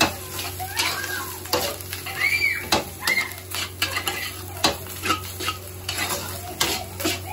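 A metal spatula scraping and clanking irregularly against a wok as fried rice is stir-fried over a gas flame, with frying sizzle and a steady low hum underneath.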